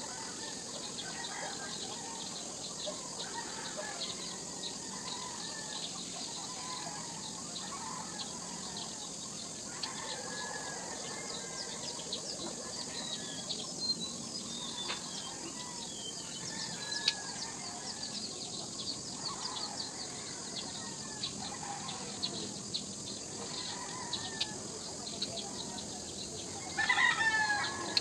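Chickens clucking and calling in short scattered calls over a steady high hiss, with one louder call lasting about a second near the end.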